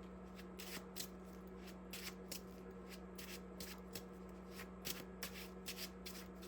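A deck of tarot cards being shuffled by hand: faint, irregular card rustles and taps, a few a second, over a steady low hum.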